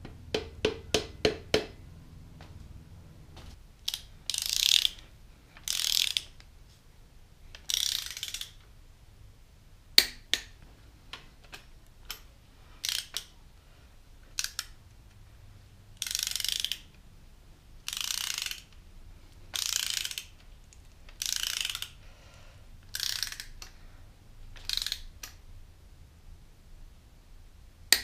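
A long-handled ratchet wrench tightening the connecting-rod cap nuts on a Ford 429 big-block V8. A quick run of ticks at the start is followed by about a dozen separate ratcheting rasps, one every second or two as the handle swings back, with a couple of sharp single clicks in between.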